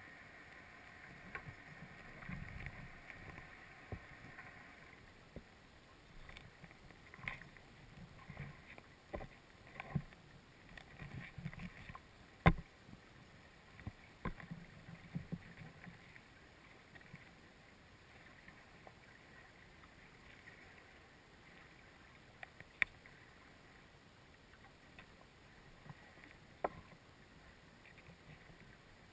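Quiet background with scattered knocks and sharp clicks, the loudest about twelve seconds in, and low rumbling handling noise through the first half. A faint steady high hum fades out about five seconds in.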